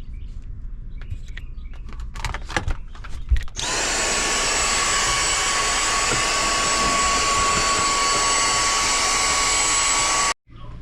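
A few knocks and clicks, then a vacuum cleaner switched on about three and a half seconds in, its motor spinning up and running steadily with a high whine while sucking up sawdust; it cuts off suddenly near the end.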